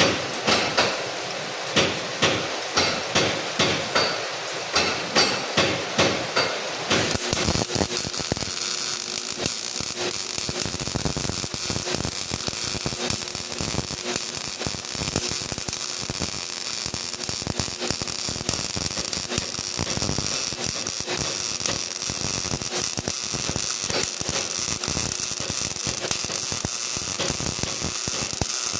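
Sharp metal hammer strikes, about two to three a second, for the first seven seconds or so. Then a MIG welding arc with CO2 shielding gas starts and crackles steadily.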